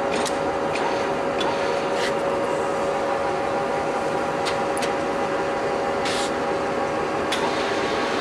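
Steady machine hum with several steady tones, over which come scattered metallic clicks and a brief scrape about six seconds in, as the lathe carriage's handwheel and cross-slide are worked by hand.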